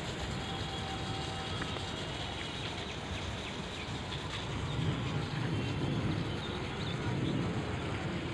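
Outdoor ambience: a steady hiss with a low rumble that swells about halfway through, and a few faint short chirps.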